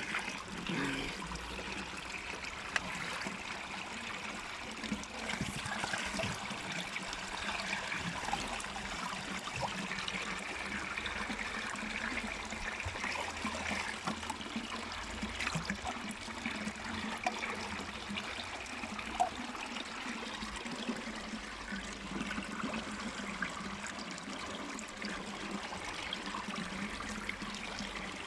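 Water trickling steadily in a bottle, a continuous splashing dribble with scattered small ticks.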